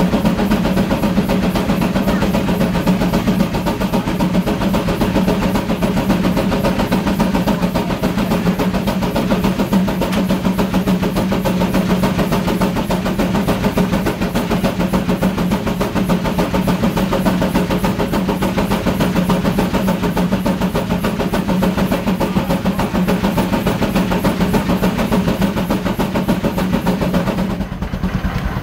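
Advance-Rumely steam traction engine working hard under heavy load, belted to a power eater dynamometer: a fast, steady exhaust beat over the running drive belt and load machine, holding near 80 horsepower. About a second before the end the load comes off and the sound drops and eases.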